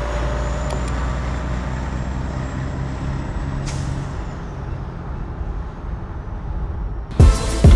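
Heavy truck driving, its engine a steady low drone. Music with loud drum hits cuts in near the end.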